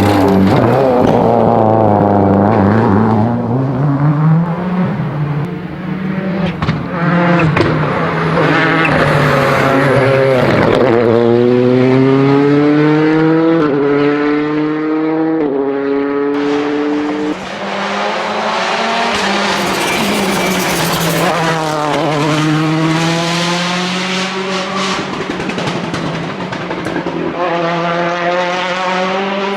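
Turbocharged World Rally Car engines at full throttle: revs climb and step down through quick gear changes, falling away between pulls, with sharp anti-lag bangs when the throttle is lifted.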